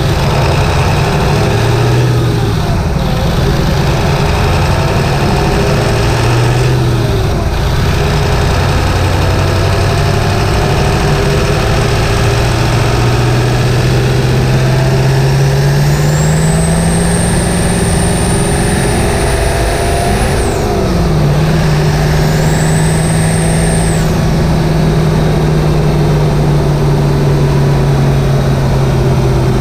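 Ford 7.3 L Powerstroke turbocharged V8 diesel, heard from inside the engine bay, pulling under full throttle with the revs climbing slowly and a high turbo whistle rising over it. About two-thirds of the way through the revs drop sharply and the whistle cuts off. The whistle then returns briefly while the engine runs on at a steady speed.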